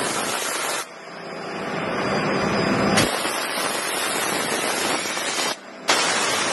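Edge-banding machine's milling unit running, its cutters machining the panel edge as a loud, steady rushing hiss. The hiss drops off abruptly just under a second in, builds back up, and breaks off briefly again a little past five seconds.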